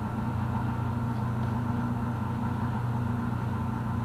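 Polaris Axys 850 two-stroke twin snowmobile engine with a Bikeman Powder Lite muffler idling steadily on an engine dyno after a wide-open-throttle pull.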